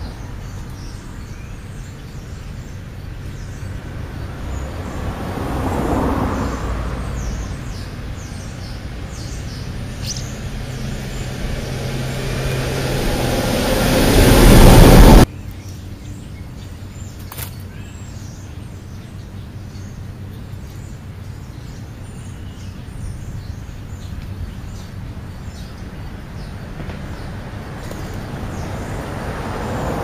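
Road traffic: a steady low hum of vehicles passing, with one swelling briefly and another growing loud and then cutting off abruptly about halfway through.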